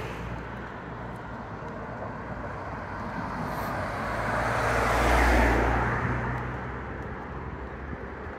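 A car drives past on the street, its tyre and engine noise swelling to loudest about five seconds in and then fading, over a steady low hum of road traffic.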